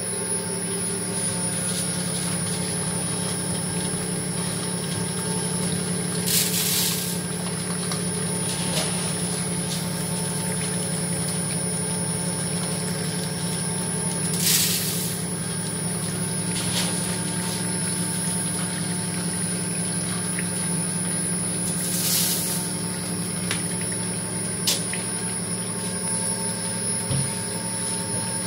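SPU-40 screw oil press running, its 2.2 kW electric motor and gearbox humming steadily as the screw presses sunflower seeds. Three short hisses come about eight seconds apart.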